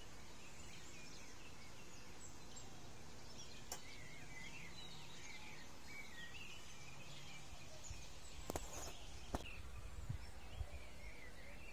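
Outdoor ambience: a steady wash of background noise with faint bird chirps, and a few light clicks in the second half.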